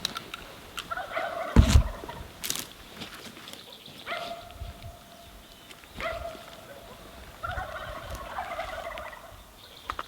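Wild turkey gobbling, about four rattling gobbles a few seconds apart. A loud low thump comes a little under two seconds in.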